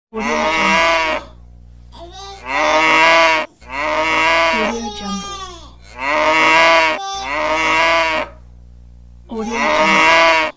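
Cow mooing six times in a row, each moo about a second long with short pauses between.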